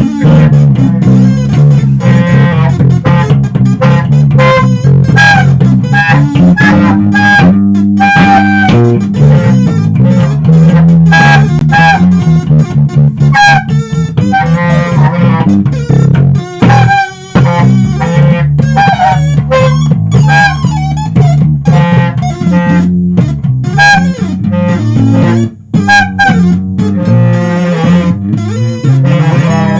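Guitar and electric bass playing together: plucked notes over a busy bass line, with a short break about 17 seconds in.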